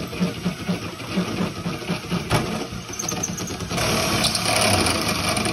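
Cordless drill turning a step bit through a stainless steel tank cap held in a vise, the bit grinding against the metal with a pulsing beat of three to four a second. The cut gets louder and harsher about four seconds in; it is a slow, hard job.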